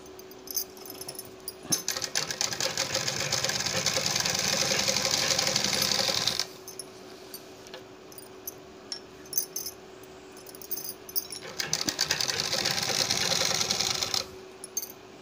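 Sewing machine stitching a folded seam along a suit's neckline, in two runs: one of about four and a half seconds starting near two seconds in, and a shorter one of about three seconds near the end. Between the runs come a few light clicks and fabric handling while the cloth is repositioned.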